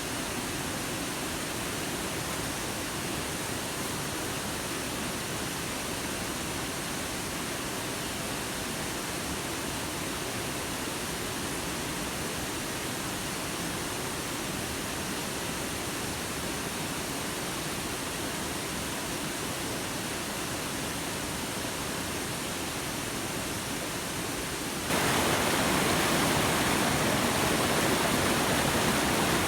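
Steady rushing water. About 25 seconds in it abruptly becomes louder and stays at that level.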